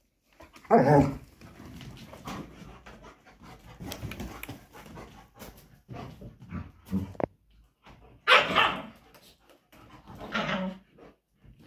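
German shepherds fighting: barking in loud outbursts about a second in and again near eight and ten seconds, with lower scuffling noise in between.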